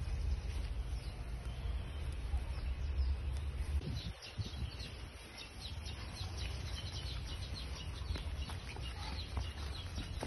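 Birds chirping in short repeated calls over a steady low rumble of wind on the microphone.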